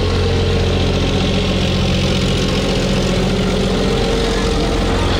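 Kenya Railways CDD-class diesel locomotive's engine running in a steady low drone as it rolls slowly through floodwater, with water sloshing around its wheels.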